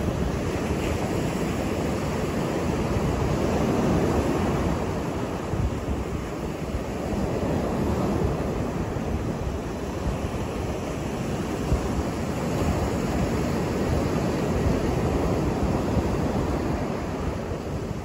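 Ocean surf breaking and washing up a sandy beach: a continuous rush of waves that swells and eases every few seconds.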